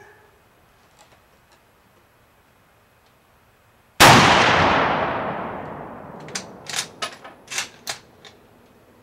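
A single rifle shot from a bolt-action Mosin-Nagant carbine in 7.62x54R about four seconds in, its report trailing off over about two seconds. It is followed by a quick run of about six sharp metallic clicks as the bolt is worked.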